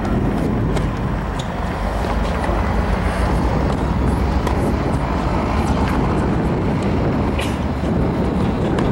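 Steady low rumbling outdoor background noise, with a few faint short clicks.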